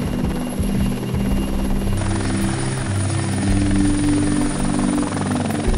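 Helicopter turbine and rotor noise, first as steady engine drone inside the cabin, then, after a change about two seconds in, the rotor chop of a helicopter hovering close by.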